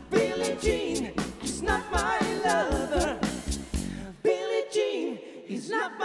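Live band music: drum kit, bass, electric guitars and keyboard playing under a singing voice. About four seconds in, the drums and bass drop out, leaving the singing and the higher instruments.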